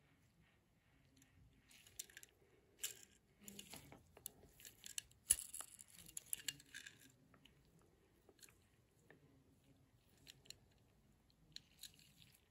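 Close handling noises of gloved fingers on a small die-cast toy car: faint rubbing and crinkly rustles of the glove with small clicks from the car. They come in a cluster a couple of seconds in, with one sharp click in the middle, then thin out to a few scattered taps.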